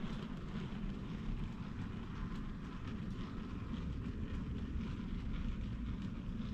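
Model railway train running on the layout: a steady low rumble with faint scattered clicks.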